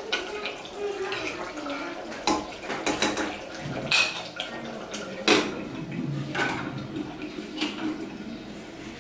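A metal spoon stirs and scrapes inside an aluminium pressure cooker, with sharp clinks of metal on metal, the loudest about five seconds in. The pressure cooker's metal lid is then fitted on.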